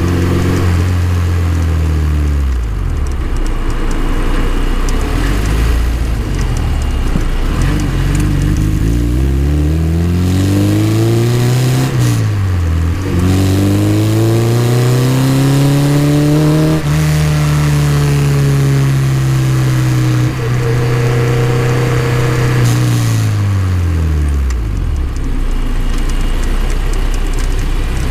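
Exomotive Exocet kit car's engine heard through its side exhaust while driving. The note falls and settles low, rises under acceleration to a quick dip at a gear change about twelve seconds in, climbs again and holds while cruising, then falls away to a low rumble as the car slows near the end.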